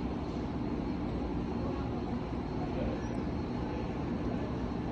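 Steady low vehicle rumble with a faint constant hum, no distinct events.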